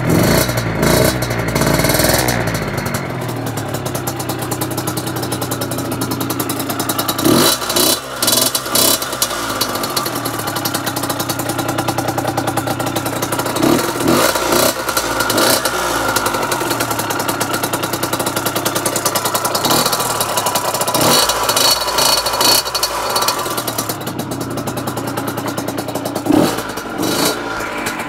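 Derbi two-stroke moped engine, fitted with a Hebo high-mounted exhaust, a homemade airbox and a 14 mm carburettor, idling and revved in short throttle blips several times.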